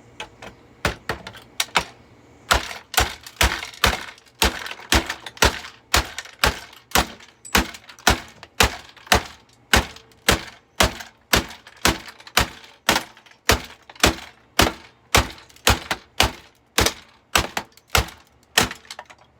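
Hammer striking a Eureka The Boss bagged vacuum cleaner again and again: a few scattered blows at first, then a steady run of about two sharp knocks a second.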